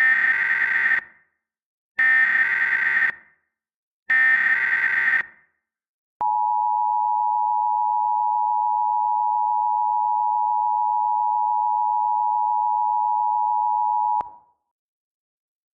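Emergency Alert System broadcast signal: three short bursts of SAME digital header data, each about a second long, then the two-tone attention signal held steady for about eight seconds and cut off sharply. It announces an incoming civil danger warning.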